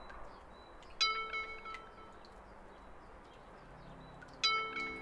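Two struck chime notes, each a bright ringing tone that fades within about a second, the second about three and a half seconds after the first, over faint background hiss. Soft sustained music tones come in near the end.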